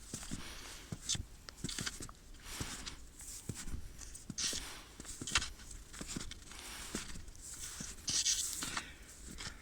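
Footsteps and rustling handling noise: scattered small clicks and knocks, with brief hissing swishes about four and a half, five and eight seconds in.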